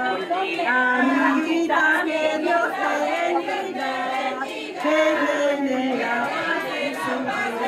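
A group of people singing together, several voices at once, with held notes.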